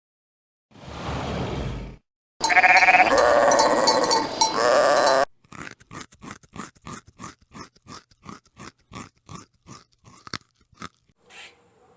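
A short breathy noise, then a sheep bleating loudly for about three seconds, followed by steady rhythmic crunching, about two strokes a second, like an animal chewing.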